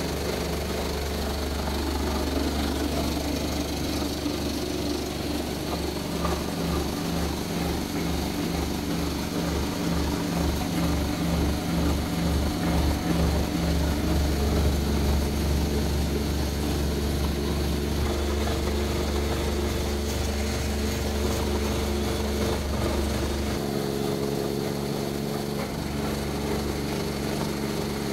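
Motor-driven feed-processing machinery running steadily, a grinder crushing eggshells and a mixer stirring powdered feed, with a constant low hum. The hum throbs for a while in the middle and changes pitch about three-quarters of the way through.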